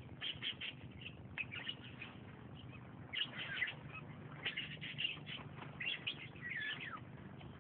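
Birds chirping, with clusters of short, quick, curving high notes that come and go in bursts over a faint low steady hum.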